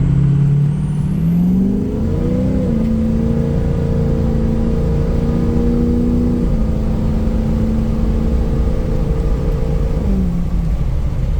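Ford 6.0L Power Stroke turbo-diesel V8 with a KC Turbo stage 2 turbocharger accelerating hard: the revs climb over the first couple of seconds, hold steady, then drop back about a second before the end.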